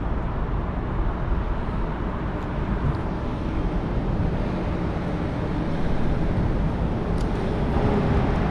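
Steady low rumble of road traffic noise, with a few faint clicks near the end.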